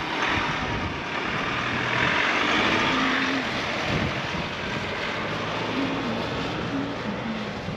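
Dual-cab 4WD ute driving past on a sandy dirt track and pulling away: steady engine and tyre noise, loudest about two to three seconds in and then easing off slowly.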